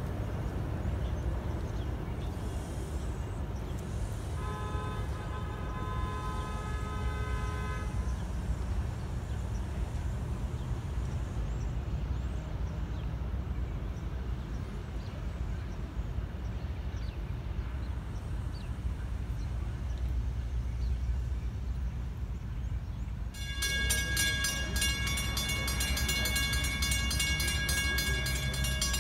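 NJ Transit commuter train rumbling as it pulls away, its locomotive horn sounding one chord-like blast of about three and a half seconds, starting about four seconds in. Near the end, grade-crossing warning bells start ringing and keep on.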